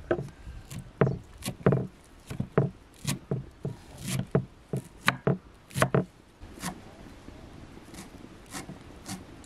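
Chef's knife chopping fresh green herbs on a thick round wooden cutting board: sharp, irregular knocks of the blade hitting the wood, about two to three a second, turning fainter and sparser for the last few seconds.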